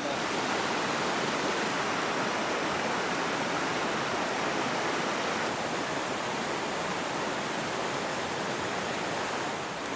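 Steady rushing noise of flowing water, starting abruptly and holding even throughout, dipping slightly just before the end.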